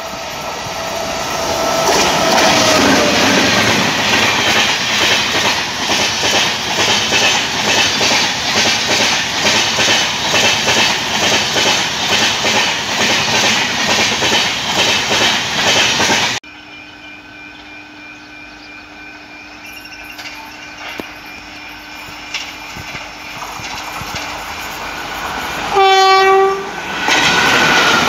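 An electric express train sounds its horn as it approaches, then its coaches pass close by with a steady clatter of wheels over rail joints, which stops abruptly about 16 seconds in. A quieter steady hum follows, then another locomotive's horn gives one loud blast of about a second near the end as a second train comes up to pass.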